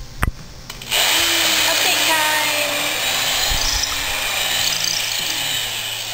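Electric drill running under load for about five seconds, starting about a second in, its pitch sinking slightly and its level easing off near the end.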